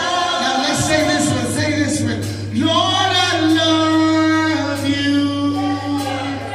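Church worship music: voices singing long, held notes over a steady low accompaniment tone, with light repeated percussion taps.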